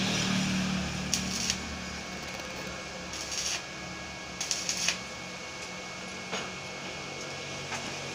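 Arc welding the joints of a tubular steel window grill frame: a steady crackling hiss, with a low electrical hum for about the first second. The hum then drops away, and short bursts and taps follow every second or two.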